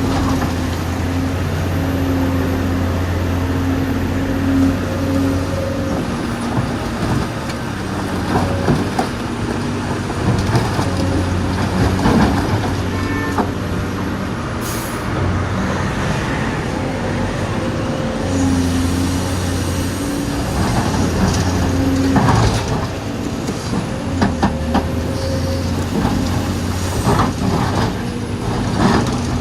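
Dubbed-in sound of a real excavator: a diesel engine running steadily, its hum strengthening and easing off several times as the machine works under load, with scattered short knocks and clanks.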